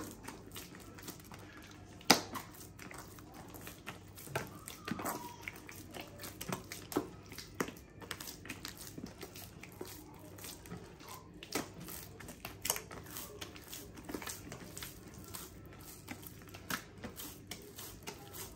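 Hands kneading a very wet, sticky bread dough in a bowl: irregular slaps, squelches and clicks, with a louder slap about two seconds in. Water is being worked into the dough until it turns slack and stretchy.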